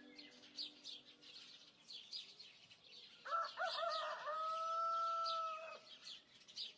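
A rooster crows once, starting about three seconds in and lasting a couple of seconds; the call wavers at first, then holds one steady pitch. Small birds chirp throughout.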